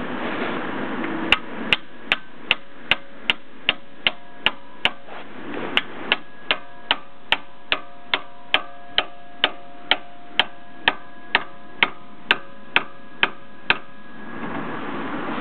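Steady hammer blows on steel, about two and a half a second, each one ringing, with a short pause about five seconds in.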